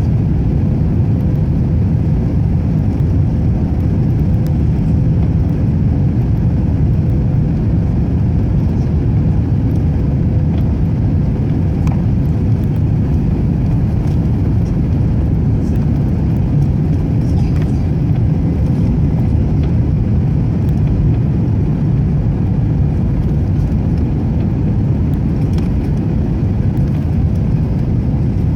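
Airbus A321 cabin noise: a steady, loud low rumble of engines and airflow with a faint constant hum, unchanging throughout.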